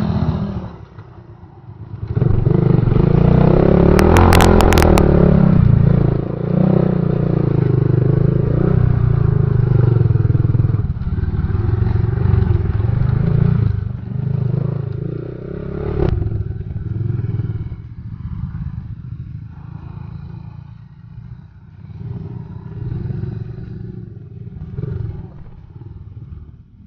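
Honda XRM underbone motorcycle's single-cylinder four-stroke engine running on a steep, rough downhill trail, with rattling and clatter from the bike over the rocks. A burst of sharp knocks comes about four seconds in. The engine is loudest in the first half and quieter and more uneven later.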